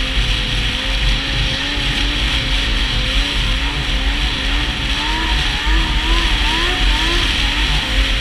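Yamaha SX Viper 700 snowmobile's two-stroke triple engine running at a steady cruising speed, with the track and wind hissing. About five seconds in, its pitch rises and falls several times in quick succession as the revs bob.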